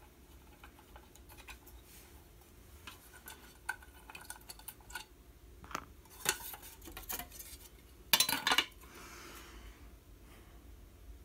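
Scattered light clicks and clinks of small hard parts being handled on a bench, with a brief loud rustle of packaging about eight seconds in.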